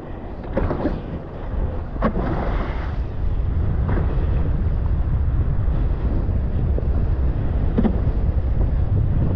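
Wind buffeting the microphone of a wingfoiler's action camera at speed over the sea, a dense low rumble that grows steadier and slightly louder after about three seconds. A few short slaps cut through it, most of them in the first half.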